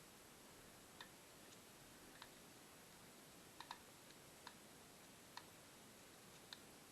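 Faint, irregular small clicks and taps over a steady hiss, about eight in all, with two close together near the middle.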